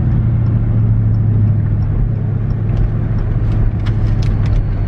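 A car engine idling steadily close by, a deep even hum that holds the same pitch throughout. A few short sharp clicks come over it in the last couple of seconds.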